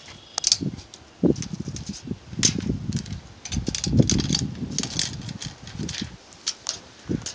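Irregular rustling and low rumbling with scattered sharp clicks, typical of wind and handling noise on a handheld camera's microphone; no engine is running.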